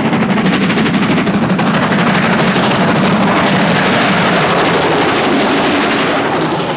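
Steam locomotive working hard at speed, its exhaust beats coming in a fast, steady, rattling stream.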